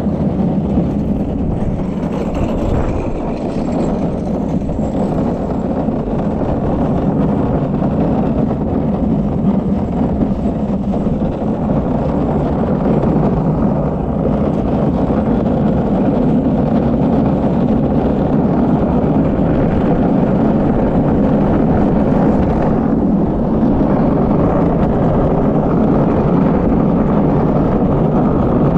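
Steady rolling rumble of an unpowered downhill gravity kart's wheels on a concrete track, heard from the rider's seat.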